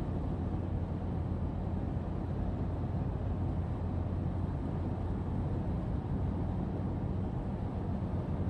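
Steady low hum of a car heard from inside its cabin, with no change in pitch or level.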